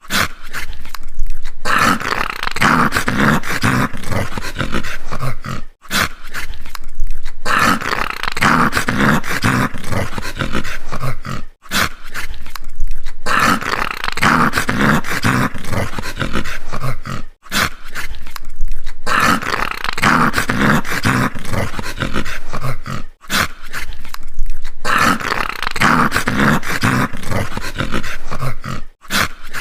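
A dog growling, deep and rough with rhythmic pulses, rising into louder snarls now and then. The same growl of about six seconds repeats five times, with a short break between each.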